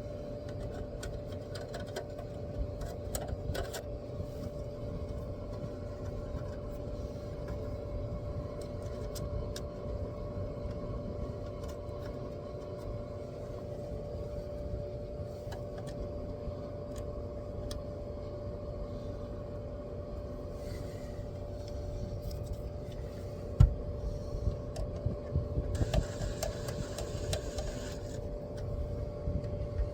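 A motor running steadily with a constant hum and low rumble. A single thump comes about 24 seconds in, and a short stretch of hiss follows near the end.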